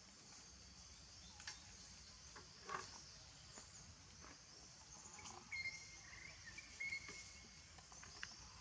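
Faint outdoor ambience: a steady high insect hum with scattered small clicks, and two short, flat, high-pitched chirps a little over halfway through.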